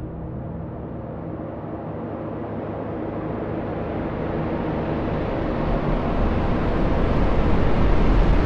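Sound-design riser for a bass drop: a dense rumbling swell that grows steadily louder and brighter, building up to the drop.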